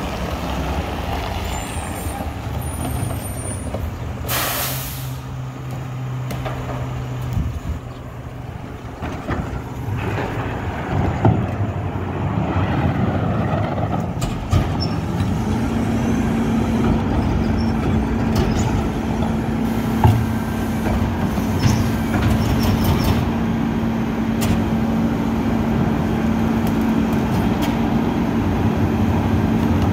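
Rear-loading recycling truck's diesel engine running at idle, with a short hiss of air about four seconds in and scattered knocks of plastic carts being tipped into the hopper. About halfway the engine speeds up and holds a higher steady pitch, as it does to drive the compactor.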